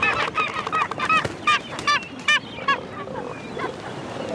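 A bird calling in a quick series of short harsh notes, about three a second, dying away about three seconds in, over a steady background hiss.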